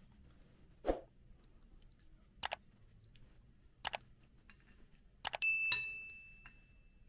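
Metal spoon clinking against an aluminium pot and a ceramic bowl while thick soup is served. There are three separate clinks, then a quick cluster of taps about five seconds in, the last of which rings out like a bell for about a second.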